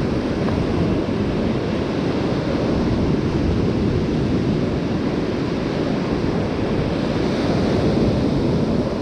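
Ocean surf breaking and washing up the sand in a steady rushing roar, a little hissier near the end, with wind rumbling on the microphone.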